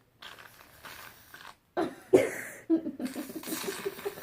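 A girl coughing a couple of times about two seconds in, followed by a drawn-out voiced sound, after a faint hiss.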